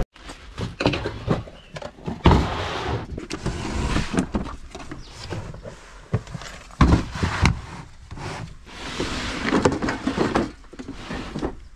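Plastic crates full of spray paint cans being pulled out and slid back in a van's cargo area: cans clinking and rattling, plastic scraping, and a string of knocks, the loudest about two and seven seconds in.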